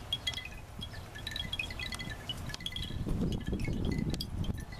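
Chimes ringing irregularly, a few short high tones at a time, over a low rumble.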